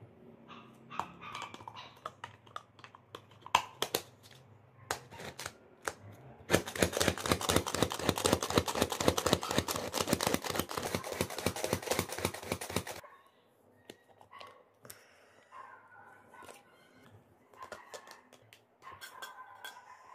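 Manual hand chopper working a load of onion: a fast, even clatter of the spinning blades chopping inside the plastic bowl for about six seconds, starting about a third of the way in. Before and after it, scattered clicks and knocks of the lid and bowl being handled.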